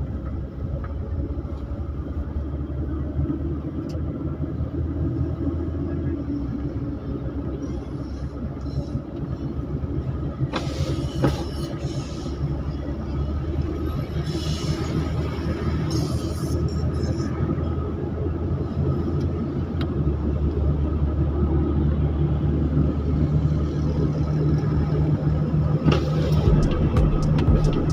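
Motor vehicle driving on a highway: steady engine and road rumble, with several brief swells of hiss. It gets gradually louder toward the end.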